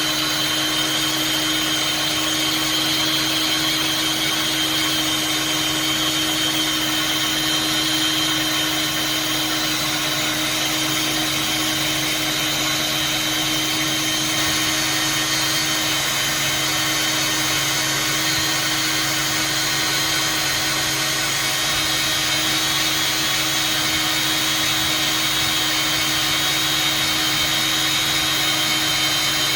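Steady, unbroken machine noise on a welding job: a constant whir with a low hum and a high hiss.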